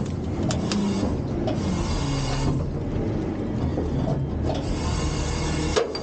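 Front-loader garbage truck's engine and hydraulics running under load as the lift arms tip a dumpster over the hopper, with a few light knocks and a sharp knock near the end.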